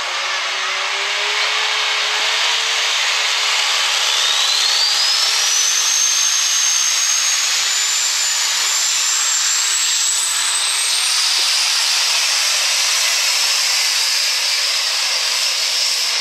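Super stock diesel 4x4 pulling truck running hard under load on the pull, a loud steady engine and exhaust noise. A high whine climbs in pitch over the first ten seconds or so and then holds.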